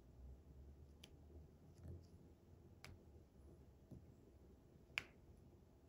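Square diamond-painting drills clicking into place one at a time as they are pressed onto the canvas, a few sharp separate clicks with the loudest near the end. The click is the sign of snugly cut square drills seating in their spots.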